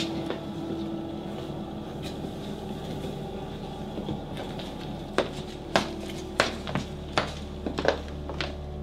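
A steady low hum, joined from about five seconds in by a string of short sharp knocks, roughly two a second.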